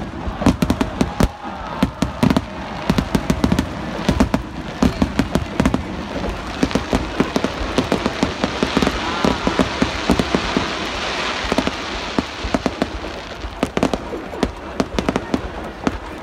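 Aerial firework shells bursting in rapid succession, a barrage of sharp bangs. Through the middle the bangs thin out under a dense crackling hiss, then pick up again near the end.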